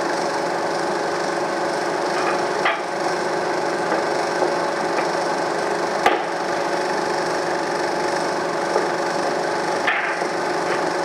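Eiki NT2 16mm film projector running, a steady mechanical noise with hiss, broken by a few sharp clicks, the loudest about halfway through.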